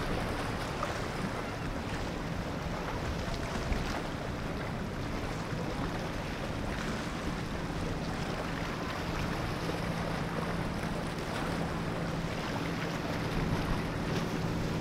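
Boat engine running on the water, a faint steady low hum under a steady wash of wind noise on the microphone.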